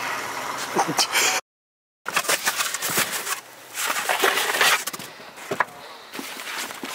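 Rustling and sharp clicks of hunting gear being handled in a canvas bag of shotgun shells. The sound cuts out completely for about half a second, about a second and a half in.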